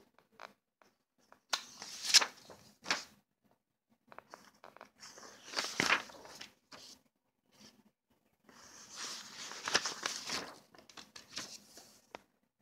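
Sheets of paper rustling and crinkling as they are handled and shuffled, in three spells of a couple of seconds each.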